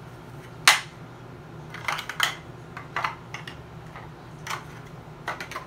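Large plastic toy building blocks clicking and clacking as they are handled, pressed together and set down on a hard floor: about eight sharp, irregular knocks, the loudest about a second in.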